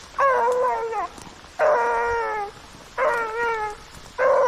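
Rabbit hound baying on the trail: four long, drawn-out howls, about a second and a half apart, the bawl a hound gives while running a rabbit's scent.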